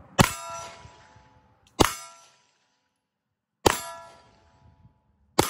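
Four 9mm pistol shots from a Glock 19, spaced a little under two seconds apart, each with the steel target plate ringing after the hit and fading within about a second.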